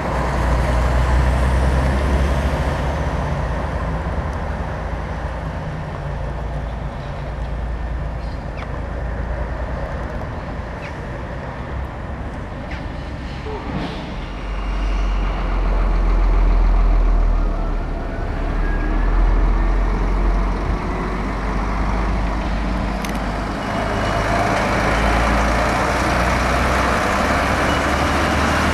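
Heavy diesel trucks running at low speed as they drive past and manoeuvre. The low engine drone swells about halfway through, then eases and builds again near the end.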